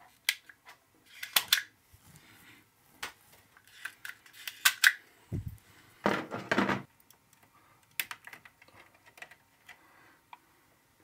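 Scattered small clicks, snaps and scrapes of hand work on wiring in an electrical distribution board, as a neutral wire is readied and fitted to a terminal. A longer scrape comes about six seconds in, with a dull knock just before it.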